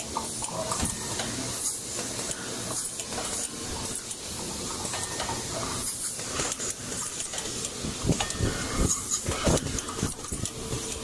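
Automatic granule weighing and bottle-filling machine running: a steady mechanical clatter with an air hiss, and a run of louder sharp clicks and knocks in the last few seconds.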